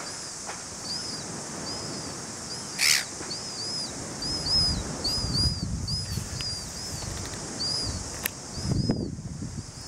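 Small birds chirping over and over in short, high-pitched chirps, over a steady high hiss. A sharp, loud noise about three seconds in, and low wind rumble on the microphone now and then.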